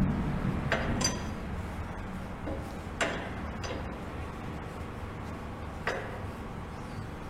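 A few light metallic clicks and clinks of parts or tools being handled on the motorcycle fork job, four in all, spaced a second or more apart, over a low steady background hum.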